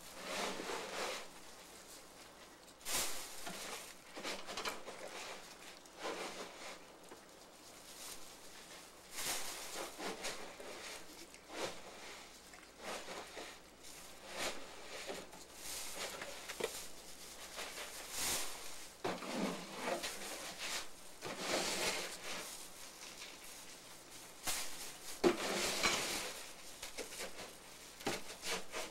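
Irregular rustling and scuffing from a person moving about close by and handling a plastic bag, in short uneven bursts.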